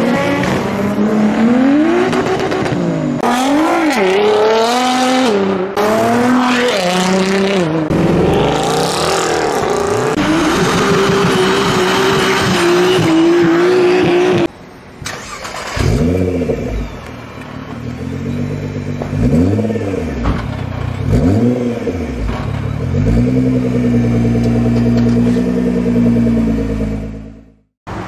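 Nissan Skyline R34's engine revved hard, its pitch swinging up and down repeatedly. After a short break about halfway, a series of quick rev blips rises and falls over a low rumble, then cuts off abruptly near the end.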